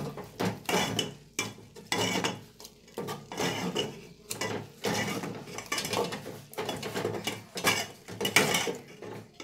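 Steel spoon stirring in a metal cooking pot, scraping and clinking against it in irregular strokes about once or twice a second. The chickpea-greens saag is being stirred while a flour and gram-flour batter is poured in to thicken it.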